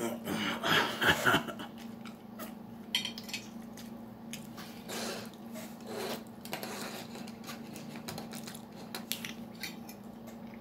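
Fork clinking and scraping on a plate in short scattered clicks, busiest for about a second near the start, over a steady low hum.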